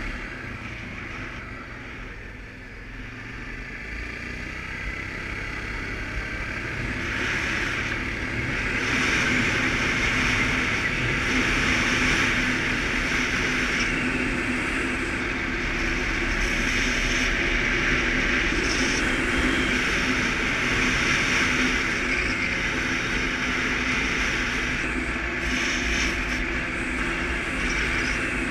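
Suzuki KingQuad ATV's single-cylinder engine running under way. It grows louder over the first several seconds, then holds steady with a rushing noise over the engine hum.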